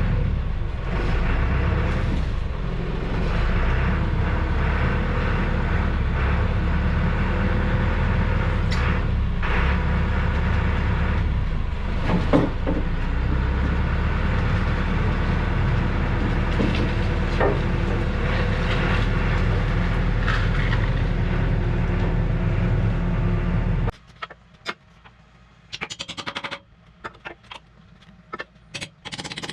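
A motor running steadily with a deep hum. It cuts off abruptly near the end, leaving a few scattered sharp clicks and knocks.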